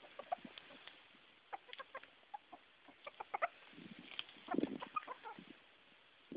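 Silver Sebright bantam roosters giving short, high-pitched calls in scattered bursts, their alarmed 'afraid' sound. A few soft low thumps come in the loudest stretch, a little past the middle.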